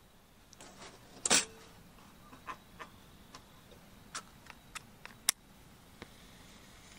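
A match struck about a second in, a short scratchy flare. It is followed by a string of light, sharp metallic clicks from a Feuerhand 276 hurricane lantern being handled to light its wick.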